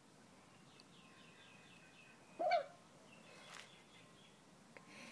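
A dachshund puppy gives one short, high whimper about halfway through. Faint repeated bird chirps come before it.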